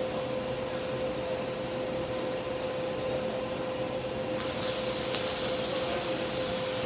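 Steady machine hum with a single held tone. About four seconds in, a welding arc is struck and a steady crackling hiss starts and carries on to the end.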